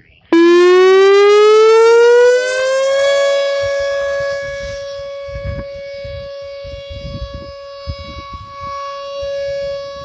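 A Whelen Vortex R4 rotating electronic outdoor warning siren starts up. Its tone cuts in abruptly and rises in pitch over about three seconds, then holds one steady tone. The loudness falls and swells again as the horn head turns. This is the steady alert signal of a tornado warning drill.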